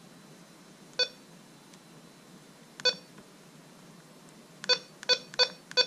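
White's GoldMaster 24K metal detector's control box beeping at each button press as its menu settings are stepped through: a single short beep about a second in, another near three seconds, then four quick beeps near the end.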